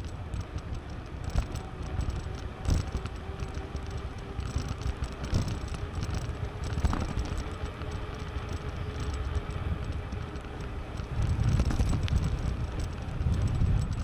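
Bicycle in motion: a steady rumble of wind on the microphone and tyre noise, with scattered clicks and rattles from the bike.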